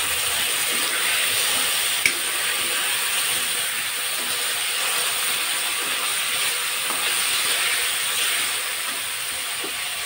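Onions and chopped tomatoes sizzling in hot oil in a metal kadai as a steel spatula stirs and scrapes them against the pan, with one sharp clink about two seconds in.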